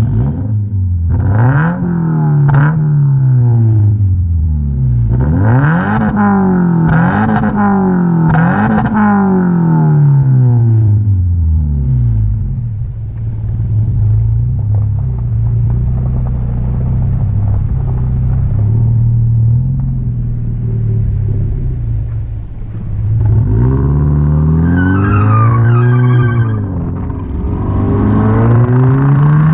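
Scion FR-S's flat-four boxer engine through a straight-piped, catless exhaust, revved several times in quick succession and dropping back each time, then settling into a steady idle before being revved again near the end.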